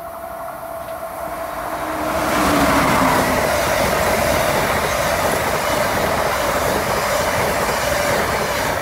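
Amtrak passenger train of stainless-steel Amfleet coaches passing at speed without stopping, its wheels on the rails rising over the first two seconds to a loud, steady rush. A steady ringing tone runs through it.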